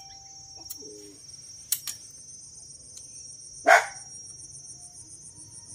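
Insects chirring steadily in a high, rapidly pulsing drone, with a dog yelping briefly about a second in and barking once loudly a little past halfway.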